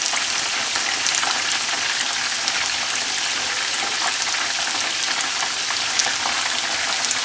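Chopped garlic sizzling in hot oil in a nonstick wok: a steady hiss with scattered small pops and crackles as the garlic fries toward golden brown.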